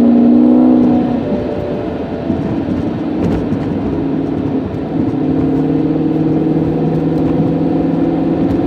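Car engine running while driving, loud in the first second, then easing off and pulling steadily again from about five seconds in.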